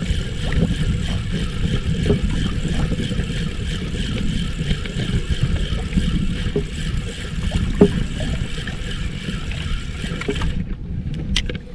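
Steady wind and water noise around a small outrigger fishing boat at sea, with a spinning reel being cranked as a fish is reeled in. The higher hiss cuts off suddenly near the end.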